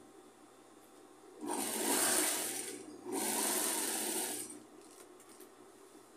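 Industrial single-needle lockstitch sewing machine running in two short bursts of about a second and a half each, with a brief stop between, stitching fabric strips.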